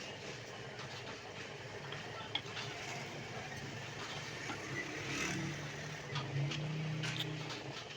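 A motor or engine running with a low steady hum that swells for a few seconds past the middle, with scattered light clicks.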